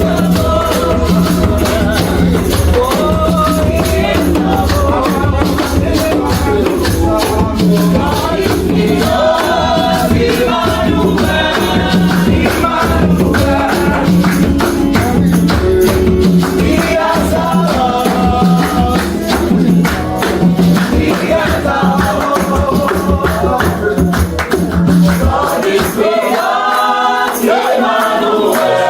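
Gospel worship music: voices singing over a steady beat with shaking percussion and a pulsing bass. The bass drops out about three seconds before the end while the singing goes on.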